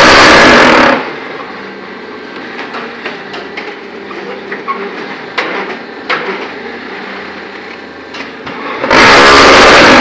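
ZCJK4-15 hydraulic concrete block machine working through its moulding cycle. The mould vibrators shake with a loud rattle for about a second at the start and again about nine seconds in. In between, the electric motor and hydraulics hum steadily, with scattered metal clicks and knocks.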